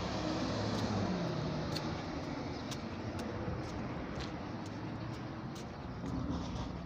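Road traffic: a vehicle passes close by about a second in, its engine note falling as it goes by, over a steady hum of traffic.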